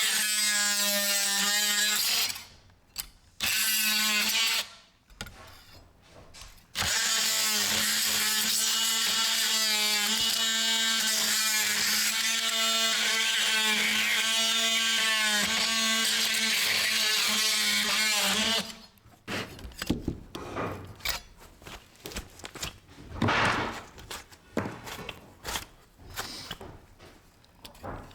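DeWalt oscillating multi-tool cutting old staples off flush. Its buzz wavers in pitch as the blade bites, in a short burst, a second short one, then a long run of about twelve seconds. Scattered knocks and scraping follow.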